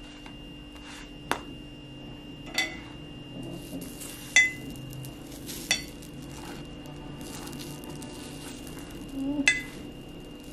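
Slotted metal spatula scraping and clinking against a flat griddle pan as pancakes are turned: five sharp clinks, the loudest about four seconds in.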